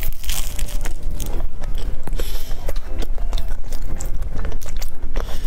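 Close-miked biting into and chewing a flaky chestnut-cream pastry, its crisp layers crackling in a dense run of small crunches.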